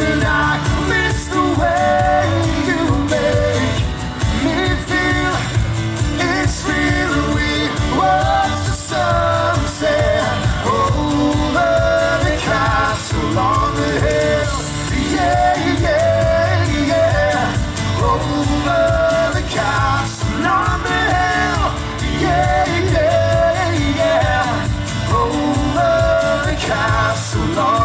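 Live band performing an amplified pop song, with a lead vocalist singing over a steady bass and drums.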